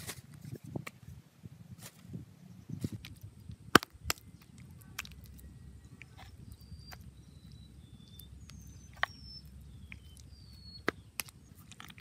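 Scattered knocks, scrapes and clicks of hands working dry, stony soil, the sharpest knock about four seconds in. From about halfway, a bird calls in short falling whistles over a thin steady high whine.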